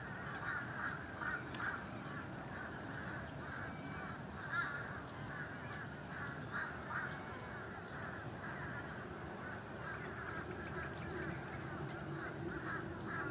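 A continuous chorus of many short, overlapping animal calls, with a few louder calls standing out.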